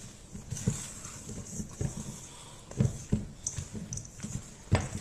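Spatula stirring thick banana bread batter with chocolate pieces and hazelnuts in a stainless steel bowl: irregular soft knocks and scrapes against the bowl, the strongest about three seconds in and near the end.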